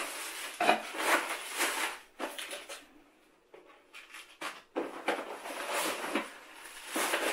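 Rustling and light clattering of modular power-supply cables and their packaging being pulled out of the box by hand, in irregular bursts with short pauses.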